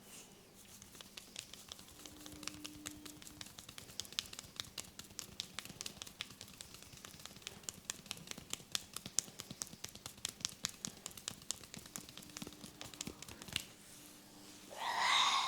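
Fingers rubbing through hair and over the scalp in a head massage, making many quick, irregular crackling clicks. The clicks thin out after about twelve seconds.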